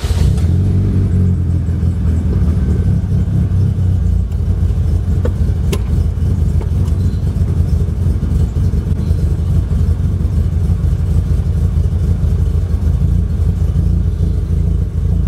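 1994 Acura Integra LS's 1.8-litre four-cylinder engine running steadily and loud just after being started, heard from inside the car. A single sharp click about six seconds in.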